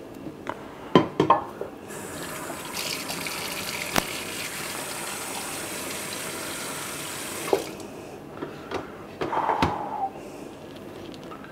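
Cooking water being drained off a pot of boiled potatoes into a sink: a steady rush of water lasting about five seconds. Sharp metal clanks of the pot come before it, and more clanks with a brief metallic ring come after.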